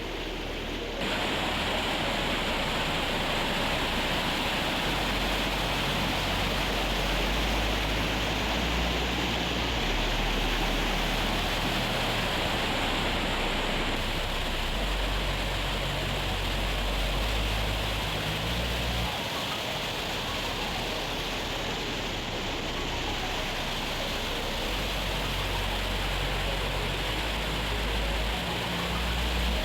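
Steady rushing of a small waterfall, with wind rumbling on the microphone.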